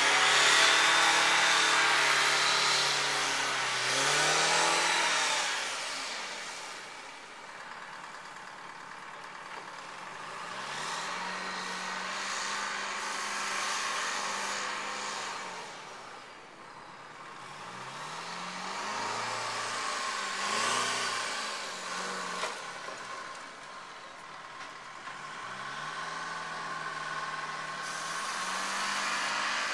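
An engine running, its pitch sagging and climbing back several times, over a loud rushing hiss that swells and fades.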